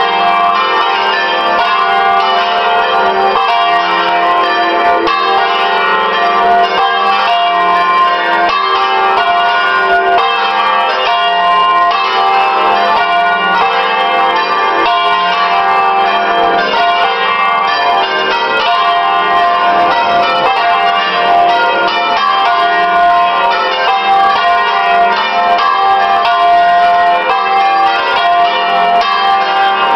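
A six-bell church peal tuned with the tenor on F3, all bells ringing together in full peal (plenum), its strokes overlapping in a steady, continuous wash of tones. This is the call to the festive Sunday Mass.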